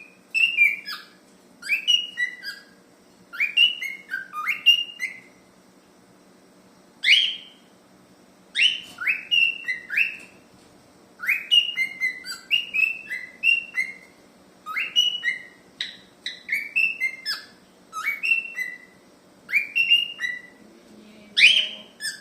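Cockatiel whistling a short phrase of quick rising and falling notes, repeated over and over, with a brief pause about five seconds in.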